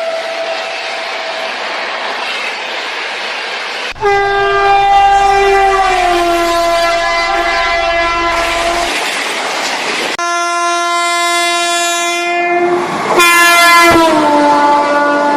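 A run of long train horn blasts, one after another, each held for several seconds and sliding down in pitch as the train passes. The sound cuts abruptly to a new horn at about four, ten and thirteen seconds, over a steady hiss of rain.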